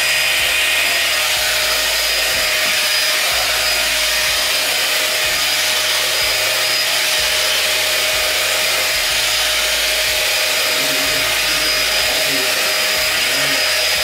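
A 5-in-1 hot air styler, a copy of the Dyson Airwrap, running with its brush attachment fitted: a steady rush of blown air with a thin, high, constant whine over it.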